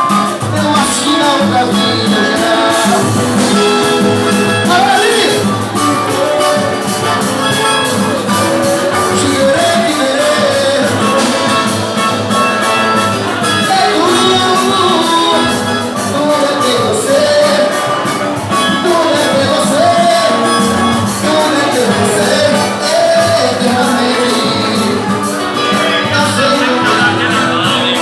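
Live band music: a Latin-style song with a steady percussion beat under a moving melody line.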